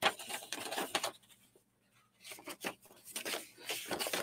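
Paper rustling and crinkling as a folded letter is handled and unfolded: a run of short scratchy rustles, with a brief pause about halfway through.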